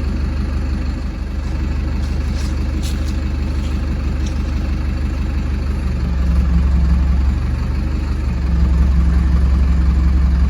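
Engine of a heavy lifting machine running steadily, then stepping up to a higher, louder speed about six seconds in, dropping back briefly, and stepping up again near the end as it works to lower the beam.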